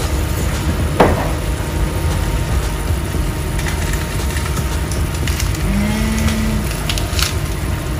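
Soy, garlic and ginger sauce simmering in a nonstick frying pan on a gas stove, with fine bubbling crackle over a steady low rumble. One sharp click comes about a second in.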